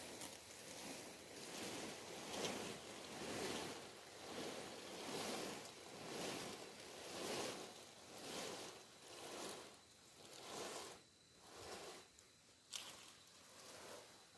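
Footsteps swishing through grass and undergrowth, about one step a second, growing weaker over the last few seconds, with one sharp click about thirteen seconds in.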